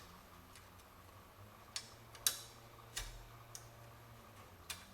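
A handful of sharp, irregular clicks and taps, the loudest a little over two seconds in, as a small metal window-trim clip is worked against its stud on a piece of sheet metal. A faint steady low hum sits underneath.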